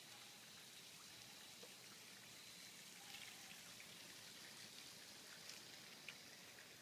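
Near silence: faint outdoor background hiss with a few soft ticks.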